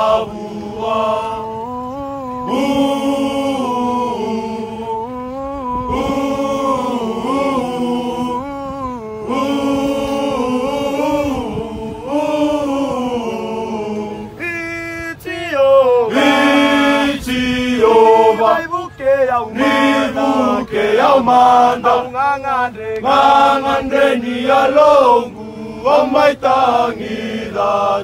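A group of young men singing a hymn together unaccompanied, with long held notes. The singing grows louder and higher about halfway through.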